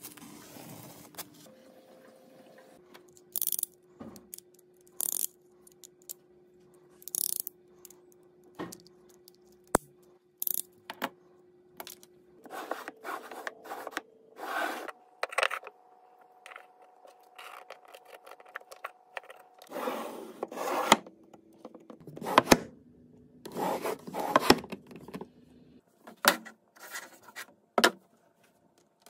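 Hand work on walls and trim: intermittent scraping and rubbing strokes with a few sharp clicks and knocks, busiest in the second half, over a faint steady hum that shifts pitch several times.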